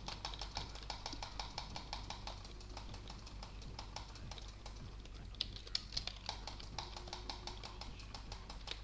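A fast, even run of sharp clicks, about six a second, thinning briefly around the middle and then resuming, over a low steady hum.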